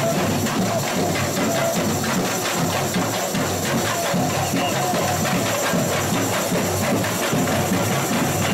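Samba school bateria (drum section) playing together in a dense, steady samba rhythm: drums with tamborins rattling over them.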